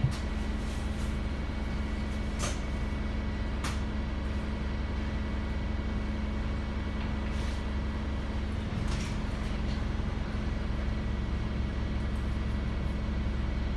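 Inside the cabin of a Wright StreetLite single-deck bus standing at a stop: its Mercedes-Benz OM934 four-cylinder diesel engine idles with a steady low hum. A soft thump right at the start and a few scattered sharp clicks sound over it.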